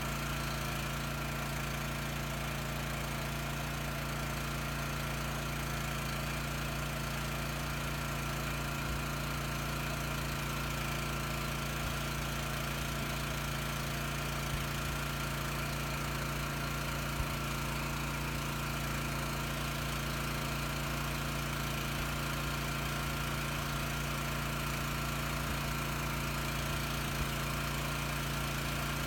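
A steady mechanical hum with a constant tone, like a motor running without change, with a few faint ticks.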